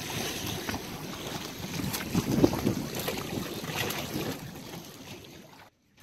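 Water sloshing and splashing against an inflatable dinghy, with wind buffeting the microphone and a few light knocks; the loudest splash comes about two and a half seconds in. It cuts off abruptly near the end.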